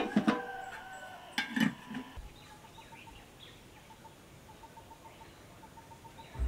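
A metal clank right at the start as an aluminium lid is set on a pot, with a chicken clucking in two short bursts during the first two seconds. After that a faint, rapid, evenly spaced chirping goes on.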